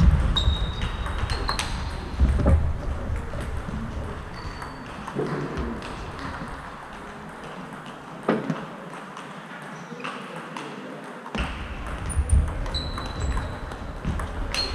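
Table tennis being played: quick, sharp clicks of the ball off bats and the table in rallies, with more ball clicks from other tables in the hall. Short high squeaks come about half a second in and again near the end.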